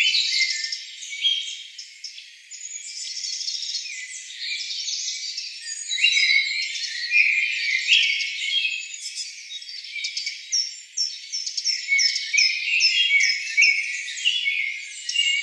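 A dense chorus of forest birds, many overlapping high-pitched chirps and short repeated calls.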